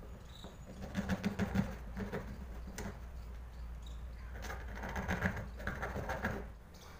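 Knife blade scraping and clicking as it cuts through a piece of PVC pipe plastic, in two spells of short strokes, about a second in and again from about four and a half seconds, over a steady low hum.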